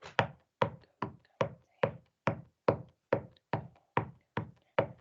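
A steady beat of sharp knocks, about two and a half a second, keeping time for a sung response.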